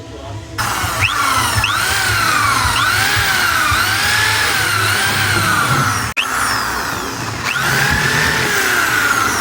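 Handheld power tool working on the refrigerator's metal body. Its whine rises and falls in pitch over and over, and it cuts out briefly about six seconds in.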